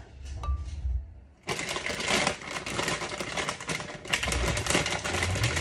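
Dense rustling and rapid clattering of things being handled and rummaged through, starting about a second and a half in after a short quiet moment.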